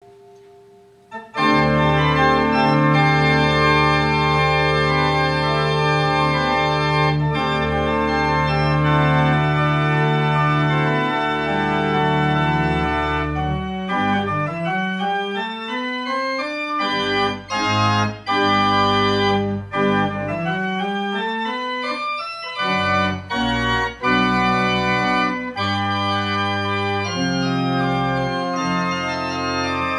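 Church organ playing full, sustained chords over a deep pedal bass, starting about a second in. From about halfway, runs climb upward through the lower voices and the chords turn shorter and detached, with brief breaks between them.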